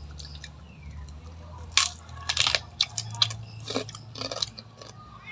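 Close-up eating sounds: a person chewing with irregular crunchy bites and wet mouth clicks, the sharpest crunches coming about two to two and a half seconds in.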